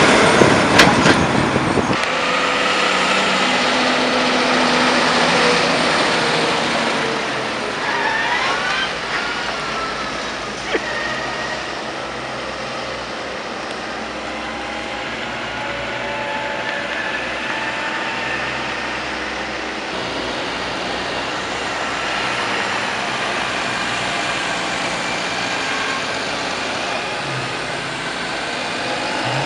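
Diesel farm tractor engines running steadily under load across several cuts of tractors hauling and packing silage. An engine note rises briefly about eight seconds in, and there is a short knock a little before eleven seconds.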